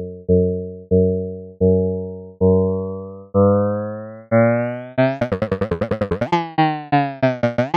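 Synthesized keyboard-like notes from a data sonification of a protein-folding simulation. Each note is struck and fades, about one a second. About five seconds in they speed up into a rapid, brighter flurry, then slow again near the end.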